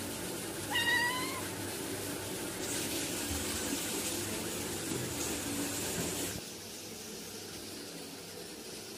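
A cat meows once, a short call rising slightly in pitch about a second in. A faint high hiss follows from about three to six seconds in.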